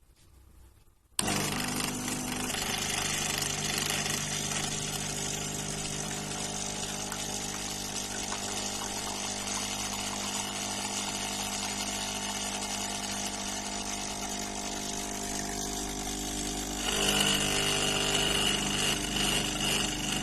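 Amazon Basics espresso machine's pump running with a steady buzzing hum. It starts suddenly about a second in, grows louder with a high whine added near the end, then cuts off suddenly.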